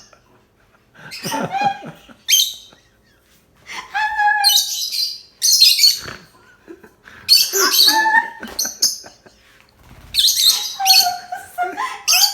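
Pet birds chirping and chattering in a series of short, high bursts with brief pauses between them.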